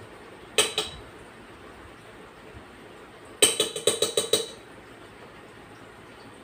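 A utensil knocked against the rim of a stainless-steel stand-mixer bowl to shake off buttercream: two clinks about half a second in, then a quick run of about seven clinks a few seconds later.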